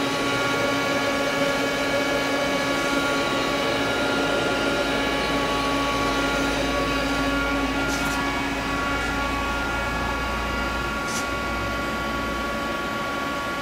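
Steady hum of running machinery, several steady whining tones over a low rumble, with a couple of faint clicks about eight and eleven seconds in.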